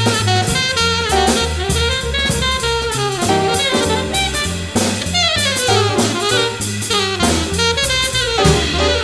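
Background jazz music with a drum kit, a stepping bass line and a saxophone melody.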